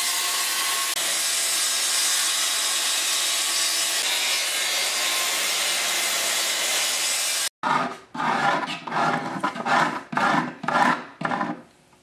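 Porter-Cable circular saw running steadily as it cuts through a plywood panel, stopping abruptly about seven and a half seconds in. A quick series of short scraping strokes follows.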